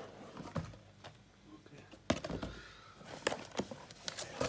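Cardboard headphone box and its paper sleeve being handled and slid apart: scattered light taps and rustles, with a sharper knock about two seconds in.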